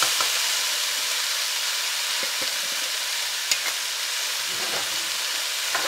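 Onions, mushrooms, bell peppers and garlic sizzling steadily in olive oil in a stainless steel pot. A few light clicks come as a spatula stirs them.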